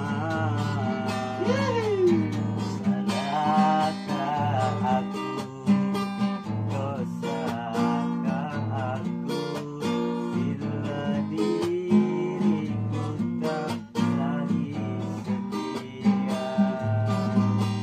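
Acoustic guitar strummed in a steady rhythm, with a man's voice singing along in places.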